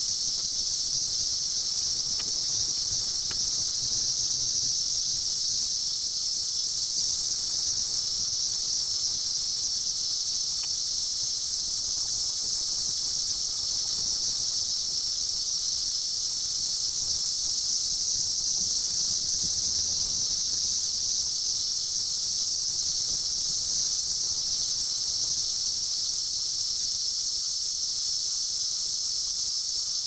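A dense chorus of Brood X 17-year periodical cicadas singing, a steady high-pitched buzz that holds unbroken.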